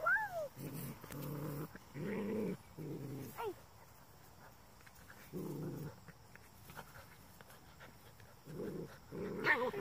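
Goldendoodle puppy play-growling: a run of short low growls, broken by high yips that slide down in pitch at the start, about three and a half seconds in, and again near the end.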